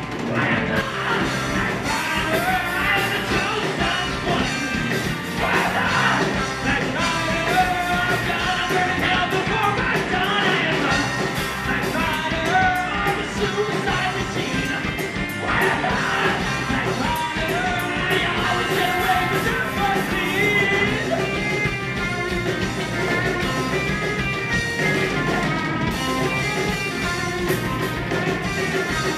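Rock band playing live, electric guitar, bass guitar and drum kit, with a man singing over them.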